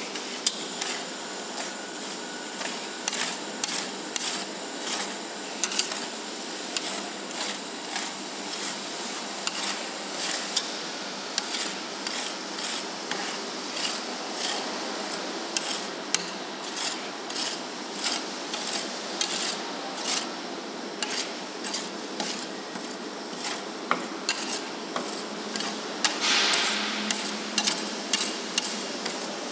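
Metal spatula scraping frozen ice cream across the chilled stainless-steel pan of a flat-pan rolled ice cream machine, in quick repeated rasping strokes with a longer scrape near the end.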